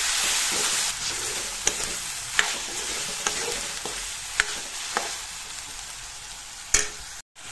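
Chicken, onion, tomato and chayote sizzling in oil in a kadai, stirred with a steel ladle that clicks and scrapes against the pan about once a second. The sizzle slowly gets quieter, and the sound cuts out briefly just before the end.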